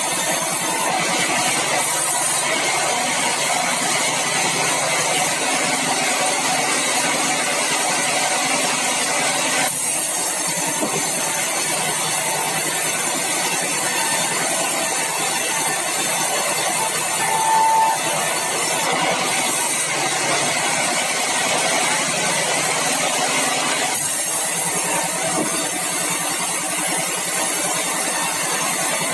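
Sawmill machinery running steadily while red meranti logs are milled, with a brief high tone just past halfway.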